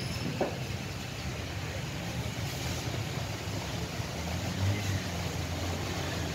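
Steady low engine-like hum over faint background hiss, swelling slightly about two-thirds of the way through, with one small click about half a second in.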